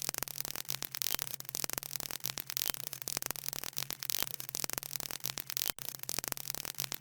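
Dense, irregular crackling static over a steady low hum, with a brief dropout near the end.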